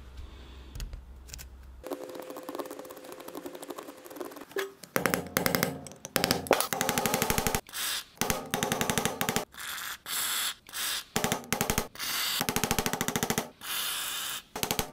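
A short hiss of an aerosol penetrating-oil spray, then repeated bursts of rapid-fire hammering from a power impact tool driving on the seized switching mechanism of a magnetic chuck to free it.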